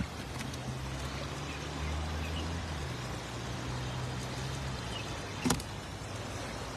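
Shallow river water running steadily over a low weir, with a low steady hum underneath. A single sharp click comes about five and a half seconds in.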